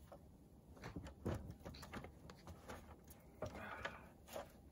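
Faint scattered knocks and scuffs as a man handles a yard rake at the foot of an aluminum extension ladder and starts to climb it.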